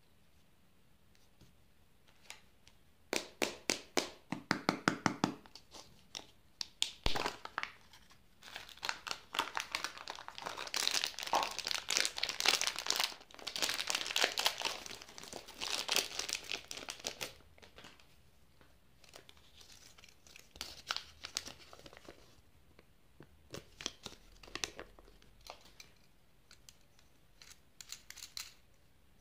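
Candy wrappers being crinkled and torn open by hand: bursts of crackling and rustling, densest around the middle, with one dull knock about seven seconds in.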